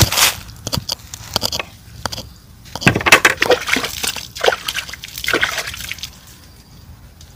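A bump, then water splashing and dripping in irregular bursts as hands are rinsed over a plastic bucket; the splashing dies down about six seconds in.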